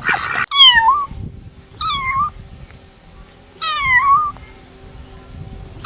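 Domestic cat meowing: three separate meows about a second and a half apart, each falling in pitch, with a fourth beginning at the end.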